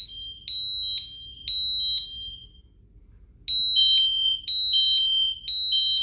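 Honeywell home alarm system sounding its fire alarm after an audible fire panic was triggered. High electronic beeps come in the temporal-three fire pattern: two half-second beeps, a pause of about a second and a half, then three more beeps. Each beep steps down slightly in pitch at its end.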